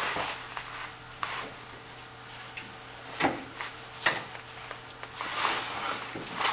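A combination wrench clinking and scraping on an 18 mm steering-rack mounting bolt as it is fitted and worked by hand, a few scattered metallic clicks.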